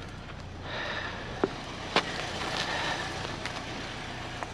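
Steady outdoor background rumble with a few short, sharp clicks and knocks.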